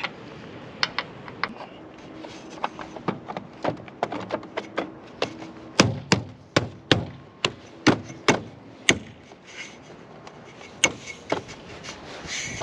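Sharp knocks and clicks of roof-rack bracket hardware being fitted and secured by hand. They come irregularly at first, then a quicker, louder run of about seven strikes halfway through, roughly two a second.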